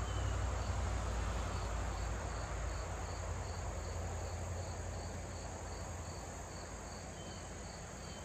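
An insect, cricket or katydid-like, chirping in an even high-pitched pulse of about two to three beats a second, over a steady rush of flowing river water.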